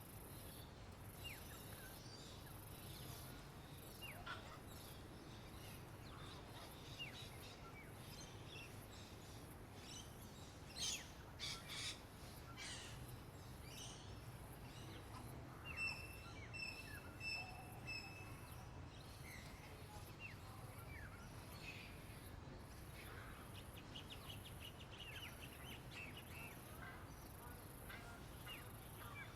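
Several birds chirping and calling faintly over a steady low background noise, with a few louder, sharp downward-sweeping calls about a third of the way in and a short run of repeated high notes near the middle.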